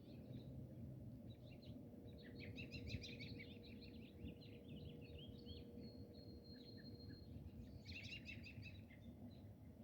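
Wild birds singing faintly: a burst of quick chirping song about two seconds in and another near the end, with a thin held whistle between them, over a steady low background noise.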